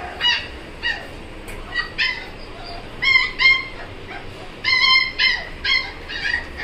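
Five-week-old Siberian husky puppies whining in short, high-pitched cries. The cries come in quick clusters of two or three, about a dozen in all.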